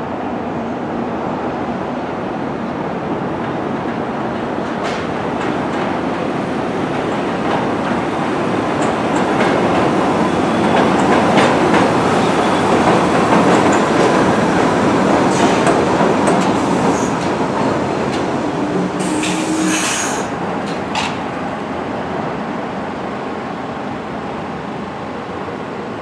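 R62A subway train on the elevated line, its wheels rumbling and clacking over the rail joints as the cars run in past the platform. It is loudest about halfway through and eases off as the train slows. Scattered sharp clicks and a short high-pitched squeal come about three quarters of the way in.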